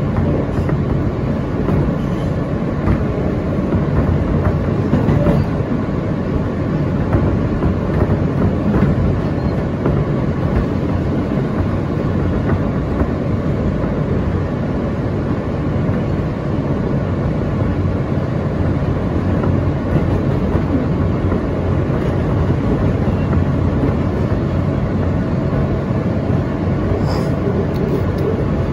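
R160A-2 subway train running along the track: a steady rumble of steel wheels on rail.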